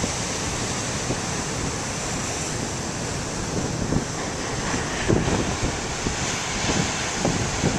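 Large ocean waves breaking and surging, a steady rushing roar, with wind buffeting the microphone in short gusts from about halfway through.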